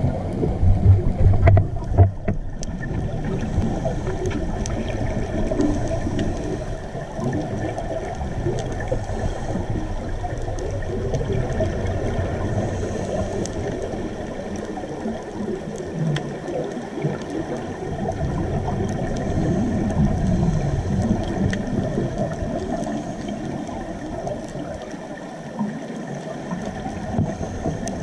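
Underwater ambience heard through a camera's waterproof housing: a steady muffled low rumble with gurgling and scattered faint clicks.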